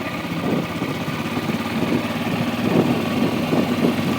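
1997 Kawasaki Prairie 400 4x4 ATV's single-cylinder four-stroke engine running steadily at low speed.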